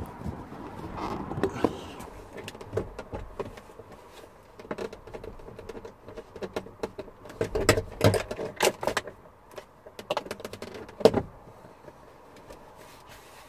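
Irregular plastic clicks, knocks and rattles from a car's interior door card being worked loose and lifted off the door. A flurry of clicks comes past the middle and one sharper knock near the end.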